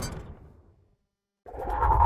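Cartoon sound effects: the tail of a whoosh fades out, a short gap of silence follows, and about one and a half seconds in a new effect starts, a low rumble with rapid crackle over it.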